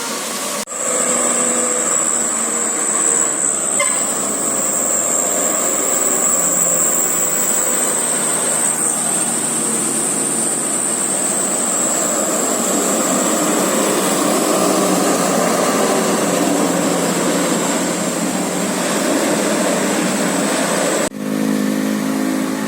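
Road vehicle noise: a steady rush of engine and tyres with a thin, high whine over it, cut off abruptly about a second in and again near the end.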